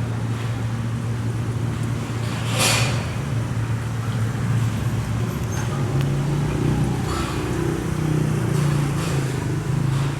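Longtail boat engine running steadily, its pitch rising a little about halfway through. A short hiss cuts across it about three seconds in, and fainter ones later.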